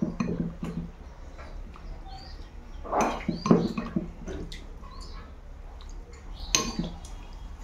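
Close-up eating sounds: chewing and wet mouth smacks, with a metal spoon scooping curry from a bowl and one sharp clink against the plate near the end.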